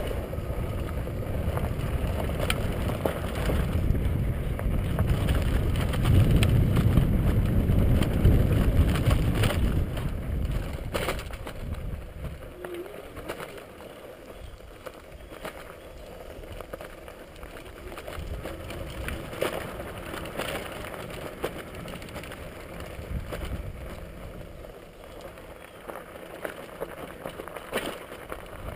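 Cruiser bicycle ridden over loose gravel, with wind buffeting the microphone and scattered clicks and knocks from the tyres and bike. The wind rumble is loud at first and drops away about ten seconds in, leaving quieter gravel crunching and knocks.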